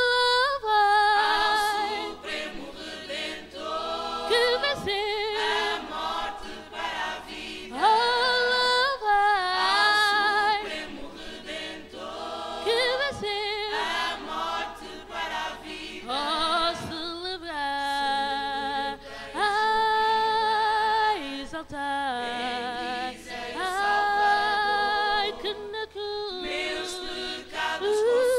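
Small mixed choir of young men and women singing a cappella, with no instruments: held notes with vibrato in phrases a second or two long, parted by short breaths.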